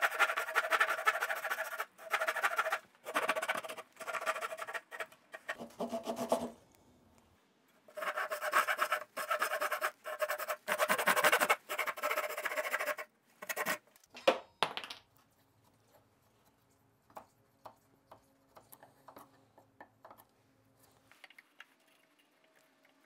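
Japanese ryoba hand saw cutting through a hardwood board in steady rasping strokes, about one a second, in two runs with a short pause between. It finishes a cut that the table saw blade could not reach. A couple of sharp knocks follow, then light scattered taps and scrapes.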